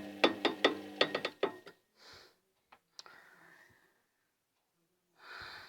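Washing machine drum knocking about four or five times a second over a motor hum, then stopping about a second and a half in; the owner takes the knocking for a worn drum bearing. After that it is mostly quiet, with a single click and a short breathy rush near the end.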